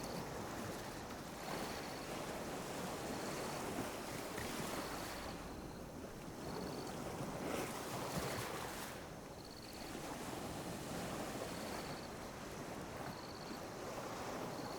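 Small ocean waves lapping and washing on a beach, a steady wash of surf that swells and eases, with a couple of brief lulls. A faint short high chirp repeats about once a second.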